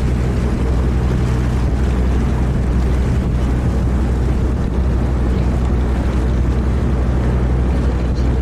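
Boat engine running steadily, a constant low hum with a rushing noise over it.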